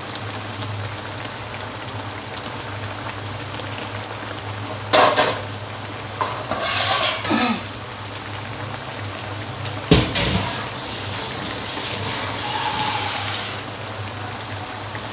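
Taro and leaves simmering and sizzling in a wok over a steady stove hum, with a few bursts of kitchen clatter. The loudest is a sharp knock about ten seconds in, followed by a few seconds of louder hissing.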